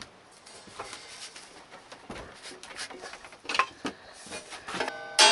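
Scattered light clicks, taps and scrapes at uneven intervals. Music begins right at the end.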